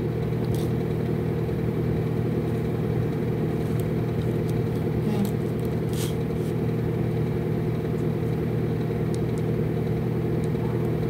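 Steady low mechanical hum from a running motor or machine, with a few faint light clicks.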